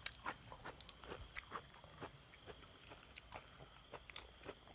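Faint eating sounds: scattered small clicks and crunches of someone chewing, irregularly spaced, over a faint steady high tone.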